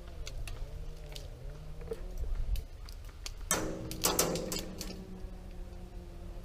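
An engine revving up and down again and again in the background, with scattered sharp clicks and a louder rustling burst about three and a half seconds in.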